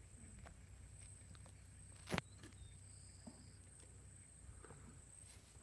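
Near silence with a few faint ticks and one sharp knock about two seconds in.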